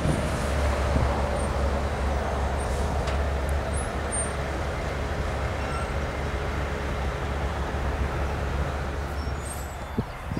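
Steady low rumble of road traffic and heavy engines, easing off slightly near the end.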